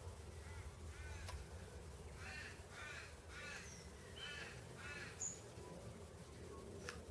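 A bird calling: a faint run of about five short, arched calls in quick succession, over a low steady background rumble.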